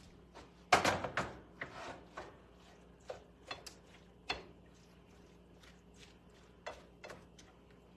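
A utensil knocking and scraping in a frying pan while ground beef is pounded and broken up, as a series of irregular clacks with the loudest cluster about a second in.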